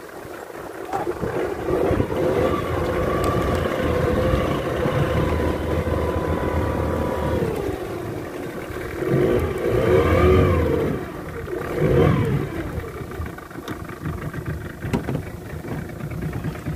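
Fishing boat's engine running steadily, then revving up and back down twice near the end.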